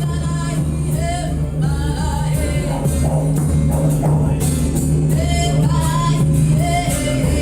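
Music with a singing voice over a steady low drone and a regular shaken or struck percussion beat, such as a tambourine.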